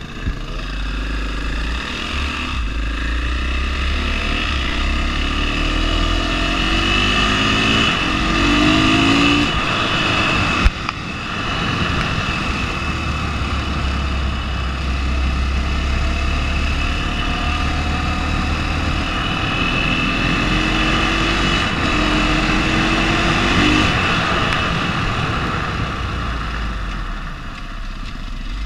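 KTM 500 single-cylinder four-stroke dirt bike engine under way, its pitch climbing as it accelerates and dropping back, over and over, with wind rushing on the microphone. A sharp knock about ten seconds in.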